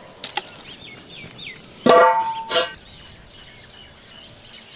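Small birds chirping in the background, with a loud, short pitched call about two seconds in and a shorter one about half a second later.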